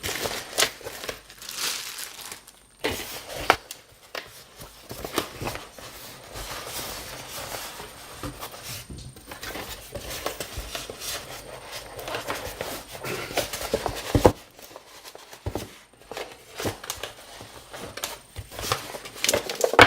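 Packaging being handled during unpacking: irregular rustling of paper and wrapping with scattered clicks and knocks.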